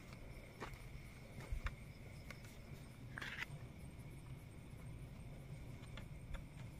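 Quiet night with a few faint, scattered footsteps on dirt and a faint steady high-pitched tone in the background.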